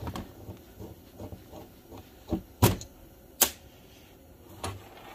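A brake caliper being handled and turned over on a metal workbench: a few sharp knocks and clicks of metal on metal, the loudest about two and a half and three and a half seconds in.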